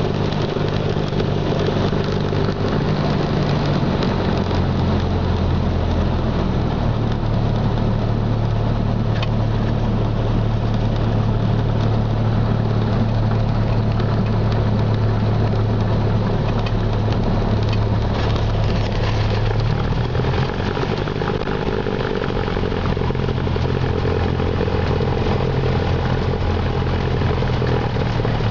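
Single-engine Cessna's piston engine and propeller running at low power while the plane rolls on the ground, heard from inside the cabin as a steady drone. Its pitch steps up or down a few times as the throttle is moved.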